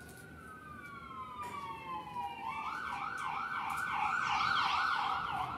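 Emergency vehicle siren: a long wail that slowly falls in pitch, then switches about two and a half seconds in to a fast yelp of about three sweeps a second. The yelp grows louder and stops abruptly near the end.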